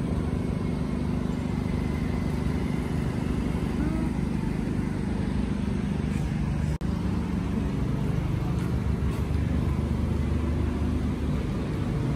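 Steady motor-vehicle engine and road noise, a continuous low hum, cut off for an instant about seven seconds in.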